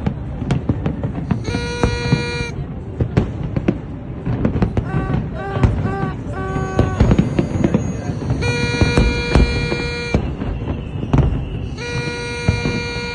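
Fireworks display banging and crackling in a dense barrage. A horn sounds three times over it: about a second and a half in, for nearly two seconds around the middle, and again near the end.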